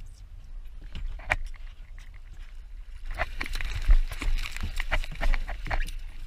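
Water slapping against a fibreglass boat hull, with scattered knocks and clatter on the boat that grow busier halfway through, the loudest a single thump about four seconds in.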